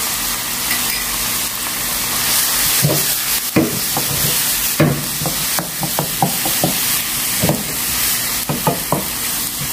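Seafood and onion sizzling in chili oil in a hot frying pan, a steady hiss throughout. From about three seconds in, a wooden spatula stirs and tosses the food, with quick scraping knocks against the pan.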